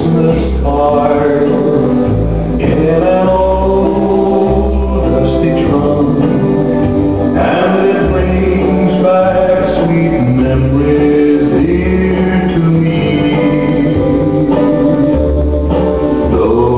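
Country song playing: a singer over guitar and a steady bass line.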